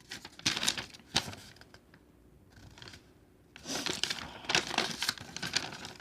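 Packaging being handled: rustling and crinkling with sharp clicks and taps, in two bursts, one at the start and another from about three and a half seconds in.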